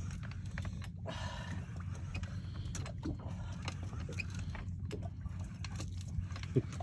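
Boat engine running with a steady low hum, with scattered small clicks and knocks over it.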